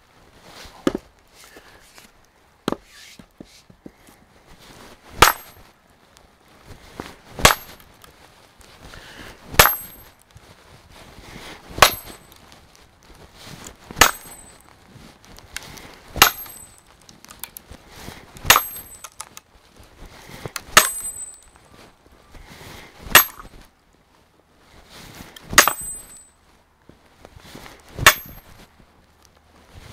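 Sledgehammer striking a steel splitting wedge set in a sawn-off fence-post end on a chopping block: eleven sharp, ringing metallic blows, about one every two seconds, after two lighter taps as the wedge is set. The timber is hard and does not split under these blows.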